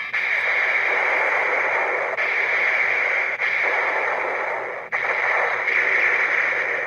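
CSM Kamen Rider Den-O belt playing its electronic Full Charge finisher sound effects through its small built-in speaker: a dense, hissy, tinny charging and attack noise, broken by a few brief cuts.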